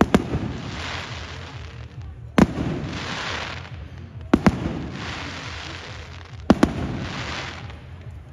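Aerial fireworks bursting overhead: four sharp bangs about two seconds apart, the last two doubled. Each bang is followed by a hiss that swells and fades over about a second.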